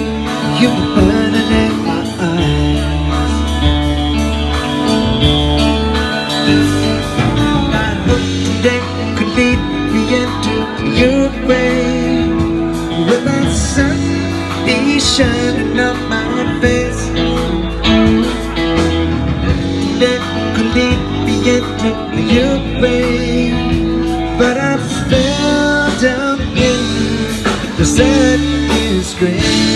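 Live rock trio playing a song: electric guitar, electric bass and drum kit, with a man singing lead vocals.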